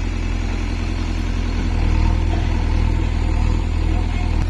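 Heavy diesel engine running steadily under load, a deep low rumble.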